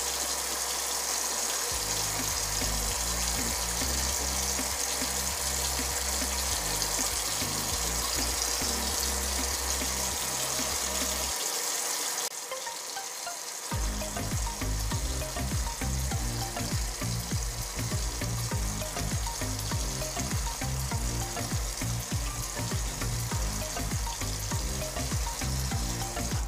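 Background music with a stepping bass line over a steady hiss. The music changes to a faster, more rhythmic beat about twelve to fourteen seconds in.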